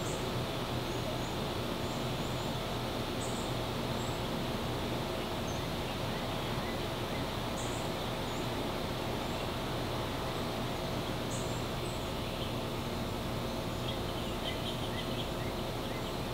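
Steady outdoor background: a constant low hum under an even haze of noise, with brief high chirps scattered every second or two and a short rapid trill near the end.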